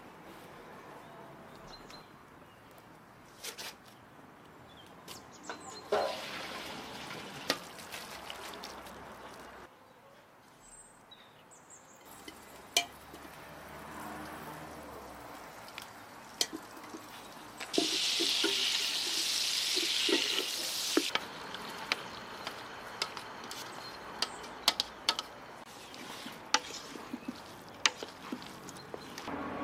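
Cooking sounds at a steaming stainless steel stockpot: scattered light clicks and knocks, with a loud steady rush of water lasting about three seconds a little past the middle, and a spoon stirring noodles in the pot near the end.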